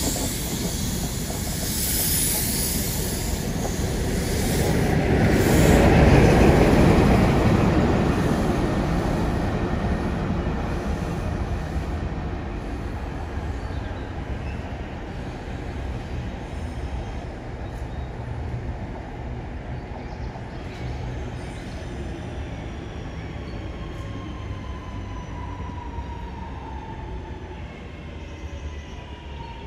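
Intercity 125 HST passing close by: the last coaches and the rear diesel power car go by, loudest about six seconds in, then the rumble of the train fades as it pulls away. In the last third a falling whine comes in as a Class 323 electric unit arrives.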